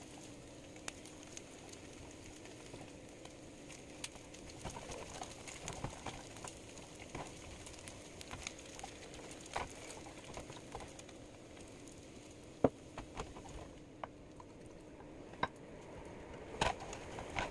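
Bacon frying in a pan: a faint sizzle with scattered crackles and pops, and now and then the tap of a plastic spatula against the pan. One sharp knock about two-thirds of the way through, and the sizzle thins near the end as the pan is lifted off the burner.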